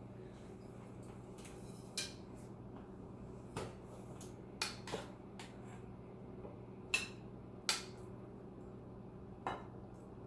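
Kitchen clatter: about seven short, scattered knocks and clinks of dishes and utensils being handled, over a steady low hum.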